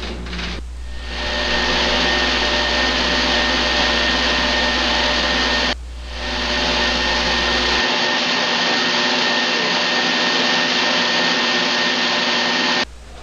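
Circular knitting machines running: a steady mechanical whir with a constant hum in it, filling the mill. It drops out briefly about six seconds in, then carries on unchanged.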